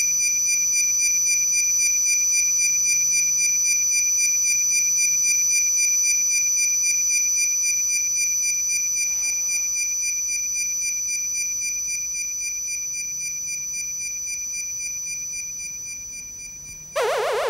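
Electronic science-fiction sound effect: a steady, high-pitched chord of pure tones with a faint pulse, slowly fading over the second half. Near the end a sudden, louder warbling electronic sound cuts in.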